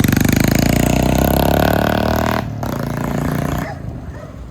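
Modified Royal Enfield Bullet 350's single-cylinder engine running loud through its aftermarket exhaust, revving as the bike pulls away. The sound drops off sharply about two and a half seconds in and fades after that.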